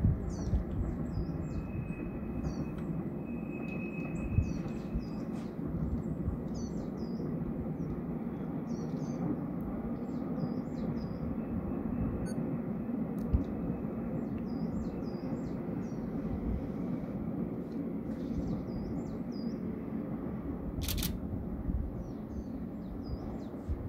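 Distant trains rumbling steadily across the valley, with small birds chirping again and again over it. A single sharp click comes near the end.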